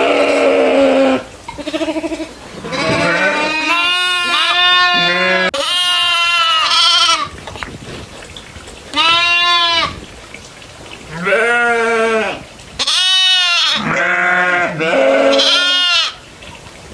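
Goats bleating, a run of loud, wavering calls one after another with short pauses, some overlapping as more than one animal calls.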